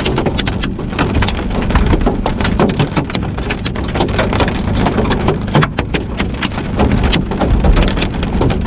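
Heavy rain mixed with hail pelting a vehicle, a dense, continuous patter of sharp hits over a low rumble.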